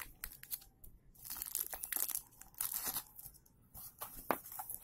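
Thin clear plastic bag being torn open and crinkled by hand, irregular crackling rustles coming in stretches with a few sharp clicks.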